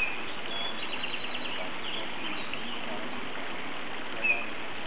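Creek water running steadily, with a few short bird chirps over it; the loudest chirp comes about four seconds in.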